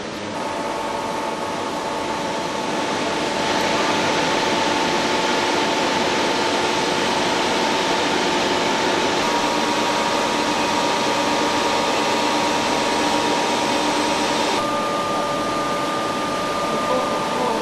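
Steady factory machinery noise: an even hiss with a few steady whining tones. The mix changes suddenly about three and a half seconds in and again near the end.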